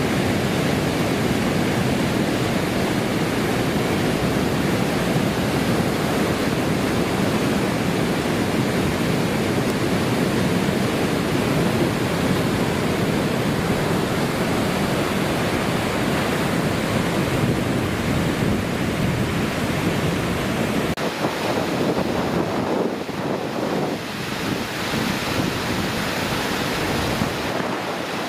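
Loud, steady rush of a river in flood: fast brown floodwater churning through a bridge arch and spilling over a wall. It eases a little for a few seconds in the last third.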